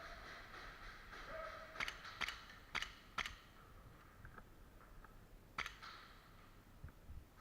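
Airsoft guns firing single shots: five sharp snaps, two close together about two seconds in, two more about three seconds in, and one past five seconds, over faint steady background noise.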